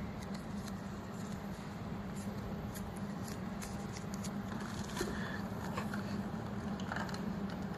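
Stiff paper rustling and crinkling, with scattered small clicks, as it is folded into a shim and packed under a treadmill's rear foot to stop the foot rattling. A steady low hum runs underneath.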